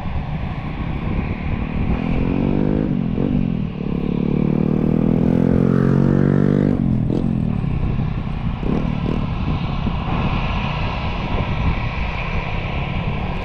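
A motor vehicle engine accelerating, its pitch climbing in steps as it changes gear, then holding a steady note for a few seconds before cutting off about seven seconds in, over a constant background rumble.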